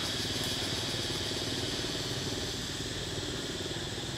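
An engine idling steadily, with a constant low rumble, under a steady high-pitched hum.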